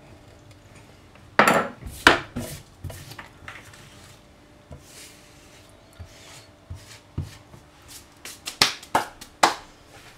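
A thin metal blade scraping melted plastic off a glass hob in short, sharp strokes: two loud ones early, scattered lighter ones, then three loud ones in quick succession near the end.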